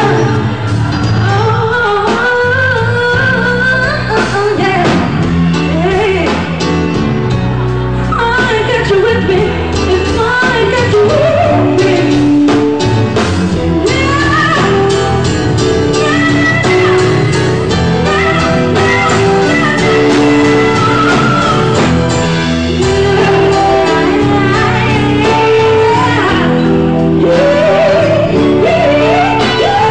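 A live band playing a song, a woman singing lead into a microphone over electric guitar and drums.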